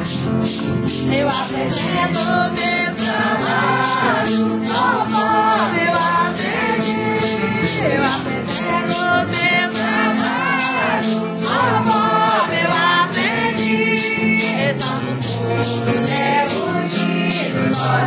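A group of women's voices singing a Santo Daime hymn in unison, over a steady rhythm of shaken maracas.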